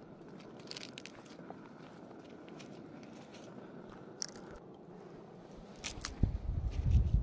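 Footsteps crunching and rustling in dry grass and brittle leaves, with scattered faint crackles. About six seconds in, heavy, uneven low thumps and rumble right at the microphone take over and are much louder.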